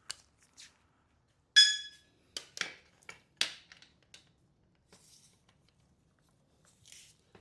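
Metal clinking while bell housing bolts are worked loose between engine and transmission. One sharp ringing clink about a second and a half in is followed by a few short knocks, then faint clicks.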